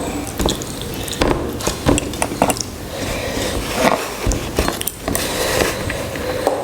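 Eating sounds from a meal of rice with egg curry: irregular clinks and taps against the plate, with mouth and chewing sounds between them.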